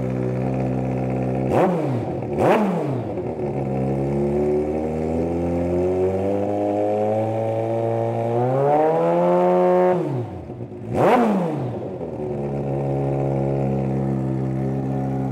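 2008 Kawasaki ZX-14R's inline-four engine running at idle. It is revved twice in quick blips about two seconds in, then the revs climb slowly and hold high for a couple of seconds before dropping. One more sharp blip follows, and it settles back to a steady idle.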